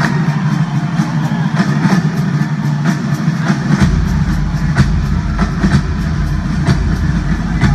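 Live rock drum solo on a kit with two bass drums, played loud through a concert PA, with hard drum and cymbal hits. About four seconds in, a continuous rapid double bass drum roll kicks in underneath.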